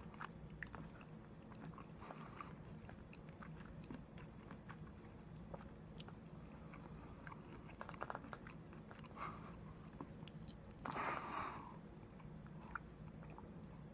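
A person quietly chewing a mouthful of curry with cauliflower, with small scattered clicks and a brief louder noise about eleven seconds in.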